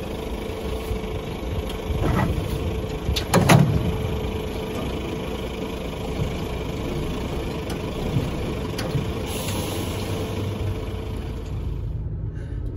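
Skip lorry's diesel engine running as it reverses slowly up to a trailer, with a steady note over the engine. A couple of clunks come two to four seconds in, the loudest about three and a half seconds in, and a short hiss comes near the end.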